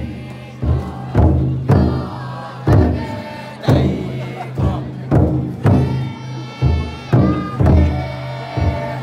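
Large taiko drum inside a futon daiko festival float beaten in a steady rhythm, about two heavy strikes a second with brief breaks. Voices chant along with the beat, strongest in the second half.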